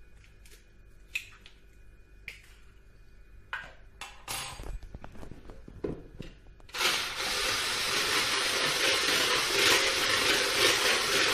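A few light clicks and knocks, then about seven seconds in an electric hand blender with a whisk attachment starts up and runs steadily, beating an egg in a plastic bowl.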